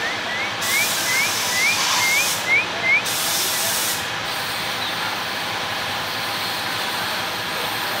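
Oriental magpie-robin whistling a run of short upslurred notes, about three a second, each pitched a little higher than the last, stopping about three seconds in. A steady hiss runs underneath.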